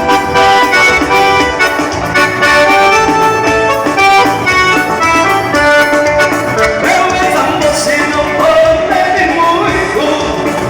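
Live band music with held melody notes over a steady beat. A singing voice joins about seven seconds in.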